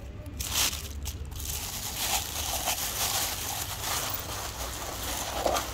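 Street cats crunching dry cat kibble: a dense run of crackly bites and crunches.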